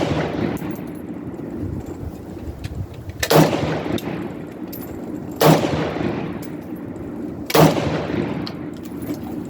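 Rifle fired in slow single shots: four loud sharp reports, the first right at the start and then about every two seconds, each trailing off in an echo. Fainter pops from other guns sound in between.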